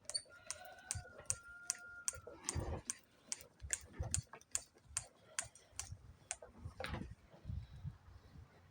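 Irregular sharp clicks and light metallic taps of hand tools and small parts being handled, a few a second, as the Stihl TS420 concrete saw is taken apart on the bench. A faint steady high tone sounds during the first two seconds.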